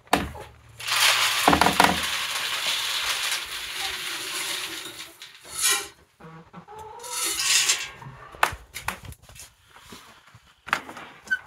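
Warm water poured from a metal can into a plastic poultry waterer: a long splashing pour of about four seconds, then a shorter pour a couple of seconds later, with a few clanks of the can.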